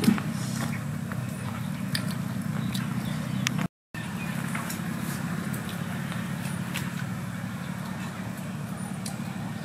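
A steady low motor hum, with scattered small clicks and rustles of hands picking apart grilled fish on banana leaves. The sound cuts out for a moment about four seconds in.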